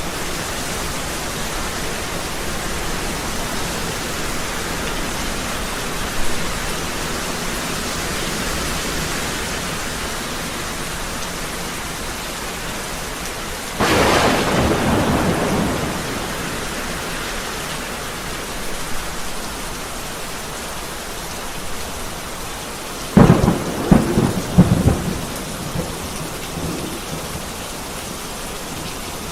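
Heavy rain falling steadily, with a burst of thunder about halfway through that lasts a couple of seconds, then a quick series of sharp, loud thunder cracks about eight seconds later.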